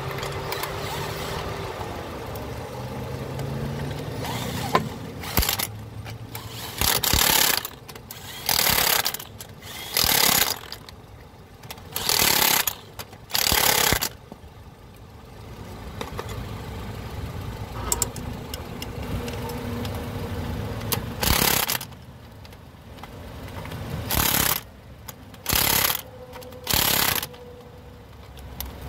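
Impact wrench fired in about ten short bursts, each under a second, running lug nuts onto a car wheel, over a steady low engine hum.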